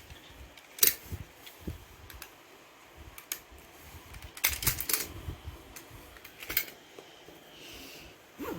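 Hard plastic toys being handled and knocked together: scattered sharp clicks and clatters, the loudest about a second in and a quick run of them around the middle.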